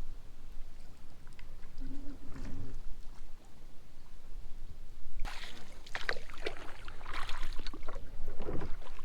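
A small boat underway on the water: a low rumble, then from about five seconds in irregular splashing and crackling noise on the microphone that gets louder.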